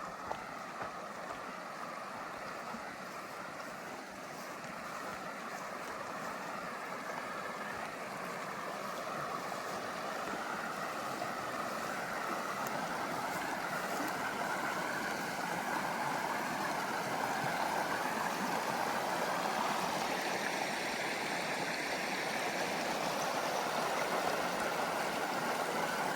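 Creek water running, a steady rushing that grows gradually louder.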